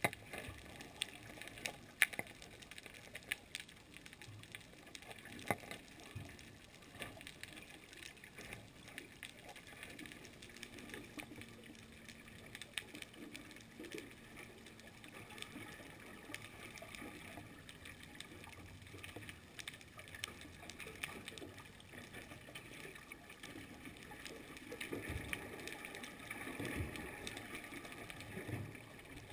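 Underwater ambience recorded through a camera housing: irregular sharp clicks and crackle over a faint hiss, with a faint steady hum through the middle and a low rumbling stretch near the end.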